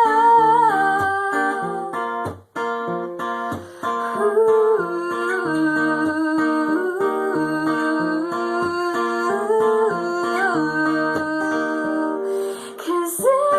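Acoustic guitar playing a song accompaniment, with a wordless sung or hummed melody held in long, gliding notes over it. The music drops out for a moment about two and a half seconds in.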